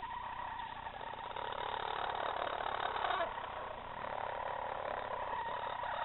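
Hens growling: a long, rolling 'RRRRrrrr' call that drops in pitch about three seconds in, then another growl that carries on to the end. It is the wary, defensive growl of adult chickens suspicious of a person close to their chicks.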